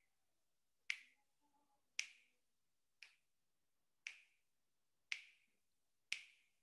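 Sharp, crisp clicks at a steady one per second, each with a short ringing tail, counting off the seconds of a held breath.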